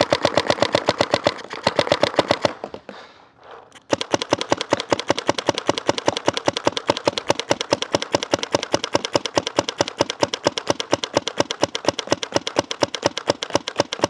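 GOG eNMEy mechanical paintball marker firing rapid semi-automatic shots on compressed air, about six a second. A short break comes a little under three seconds in, then the string of shots runs on steadily.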